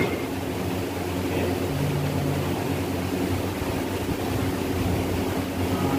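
Steady low machine hum with a sharp click right at the start.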